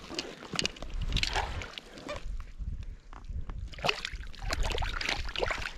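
Water sloshing and splashing close by in irregular bursts, with a low rumble underneath.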